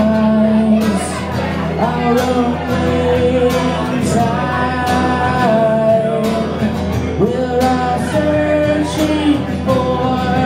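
A man singing with long held notes over a strummed acoustic guitar, performed live.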